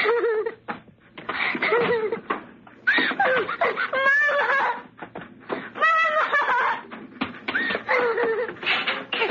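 A high-pitched human voice laughing in a string of short fits with brief pauses between them.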